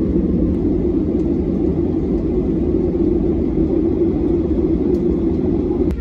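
Steady low rumble inside an airliner's cabin in flight.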